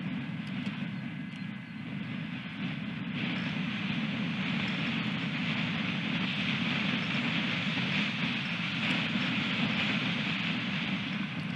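Strong wind rushing and buffeting the microphone of an outdoor osprey nest camera, a steady roaring hiss that grows stronger about three seconds in.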